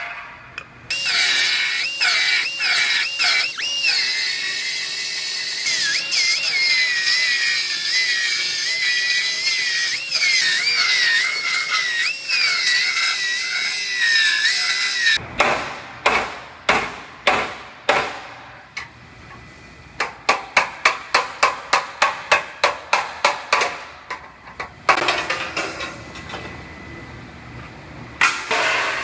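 Cut-off wheel cutting through the steel sheet-metal structure of a crash-damaged car's front corner, its whine wavering and dipping as it bites into the metal. Then a run of sharp metal knocks, about two or three a second, and a short burst of cutting again near the end.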